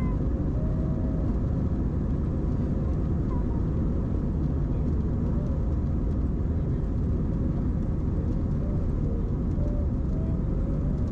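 Airbus A321 cabin noise during the takeoff roll: the engines at takeoff thrust and the wheels on the runway make a steady, loud rumble as the airliner accelerates towards lift-off.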